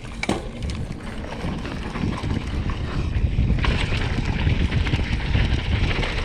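Mountain bike rolling fast down a dirt trail: wind rushing over the microphone and knobby tyres rumbling on packed dirt, growing louder as the bike picks up speed. A few sharp clicks right at the start.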